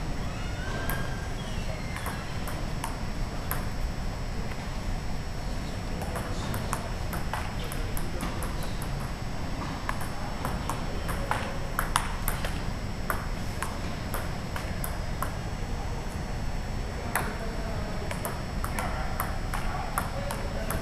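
Table tennis rally: the ball ticking sharply off the paddles and the tabletop in quick back-and-forth runs, with short pauses between points.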